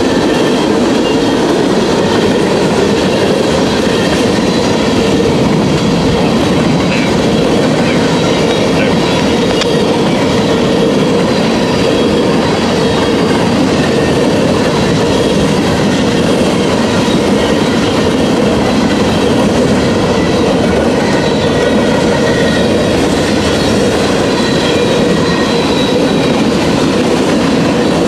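Freight train passing at a grade crossing: a loud, steady rumble of freight cars rolling on the rails, with clickety-clack of the wheels over the rail joints.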